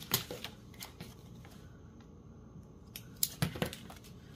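Paper and washi tape being handled on a craft table: short rustles and light clicks in two brief clusters, just after the start and again about three seconds in.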